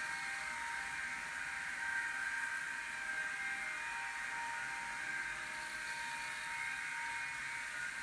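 N gauge model locomotive running on the layout: a steady electric whir from its small motor, with a thin constant whine.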